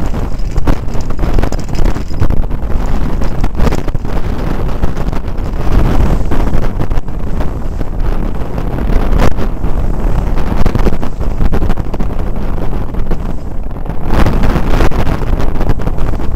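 Heavy wind buffeting the microphone aboard an Elliott sportsboat beating upwind in strong gusts, over the rush of water past the heeled hull as it drives through the waves. Occasional sharp slaps stand out from the steady rumble.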